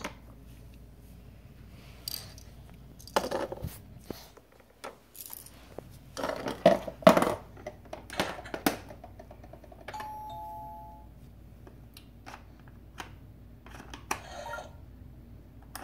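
Fisher-Price Laugh & Learn Puppy's Activity Home's toy doorbell chiming a falling two-note ding-dong about ten seconds in. Around it, the toy's plastic door and buttons click and clatter as they are worked, with a few louder bursts of sound in the first half.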